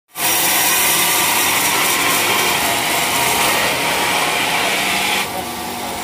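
Band sawmill blade cutting through a large hardwood log, a loud steady sawing noise that drops off suddenly about five seconds in.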